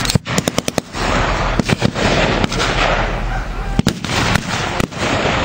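Small-arms blank fire: a quick burst of about six shots just after the start, then single shots scattered through, over a steady noisy background.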